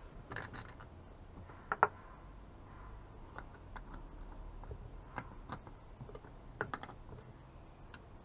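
Scattered light clicks and taps of hands handling the parts of a two-stroke chainsaw being taken apart, with a sharp double click a little under two seconds in and another pair near the end.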